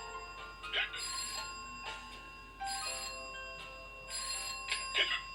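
Instrumental cartoon background music: several held, steady notes that change every second or so, over soft percussion hits about once a second.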